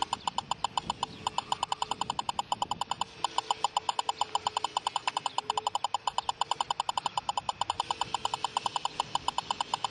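Stalker lidar speed gun beeping in a rapid, even train while fired at the car and held on error code E04: it gets no speed or distance lock because the laser jammer is blocking it.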